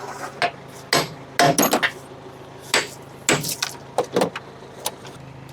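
Irregular metal clinks and knocks of hand tools, a wrench and socket working the bolts on a backhoe bucket pin, about eight strikes scattered through, over a steady low hum.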